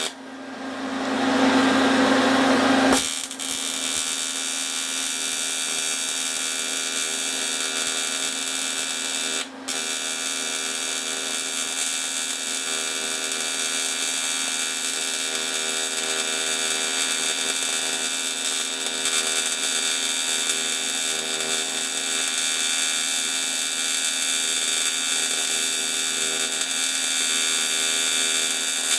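AC TIG welding arc buzzing steadily while silicon bronze filler rod is fed onto a cast iron casting, braze-welding the crack. For about the first three seconds it is a rougher hiss rising in level, then it settles into the steady buzz, and it drops out for an instant about nine and a half seconds in.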